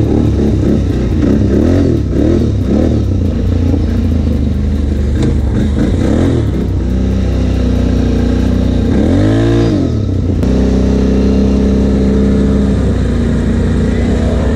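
Can-Am ATV engine heard from the rider's seat while riding, its revs rising and falling unevenly, then a quick rev up and back down about nine seconds in before it settles at a steady speed.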